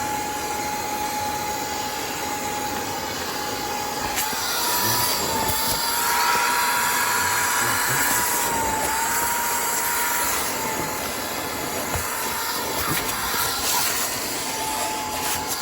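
Cordless Hoover portable spot cleaner's suction motor running with a steady high whine and rushing air as it draws dirty water out of car seat upholstery. The whine dips briefly in pitch a few times, and the noise grows louder from about five to nine seconds in.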